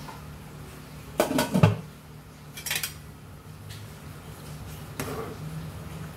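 Metal spoon clattering against a stainless steel pan while leafy greens are pushed down into the broth: a few clusters of knocks, the loudest about a second in, over a steady low hum.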